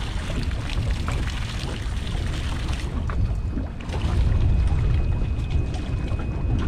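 Wind buffeting the microphone, with water splashing as a hooked fish thrashes at the surface beside the boat during the first few seconds.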